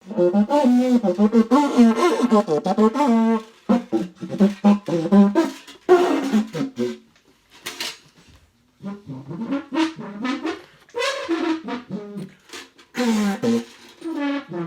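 A brassy instrumental melody played in short phrases, its pitch moving up and down, with a brief pause about halfway through.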